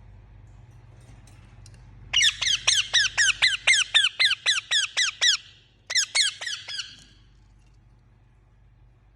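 Indian ringneck parakeet giving a fast run of shrill, repeated calls, about four or five a second, each note dropping in pitch. After a brief pause comes a shorter burst of the same calls.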